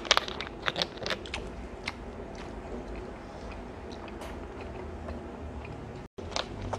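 Cola poured from a plastic bottle into a plastic cup of ice, fizzing and crackling, with a few sharp clicks in the first second and a half.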